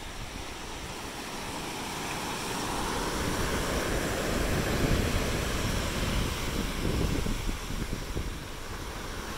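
Ocean surf washing onto a beach, the wash building over a few seconds and easing off near the end, with wind rumbling on the microphone.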